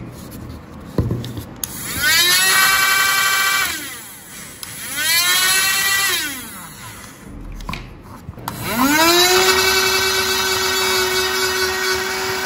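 Two small DC motors spinning the flywheels of a paper-airplane launcher. The whine rises in pitch as they spin up. Two short runs each wind back down, then a longer run from about 9 s holds steady. The maker finds the motors underpowered on their battery pack.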